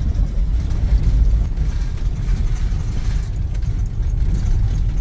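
Big RV driving along a gravel forest road: a steady low rumble of engine and tyres on gravel.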